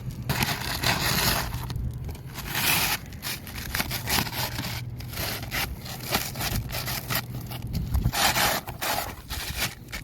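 Irregular scraping and rustling of matting being handled and rubbed against decking, in uneven bursts over a faint steady low hum.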